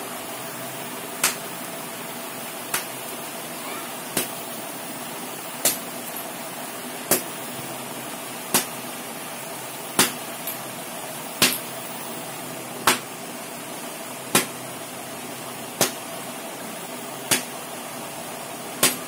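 Warm sugar candy (javvu mittai) being pulled and stretched by hand, with a sharp slap about every second and a half in an even rhythm. A steady hum runs underneath.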